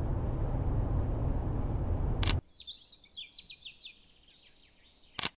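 Steady low road rumble inside a taxi's cabin, cut off suddenly about halfway through. Then a bird sings a quick run of short, falling chirps over quiet garden air.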